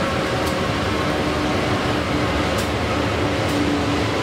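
Several MRS diesel-electric freight locomotives running in multiple as they pass close by, a steady heavy engine drone with a wavering low note over it.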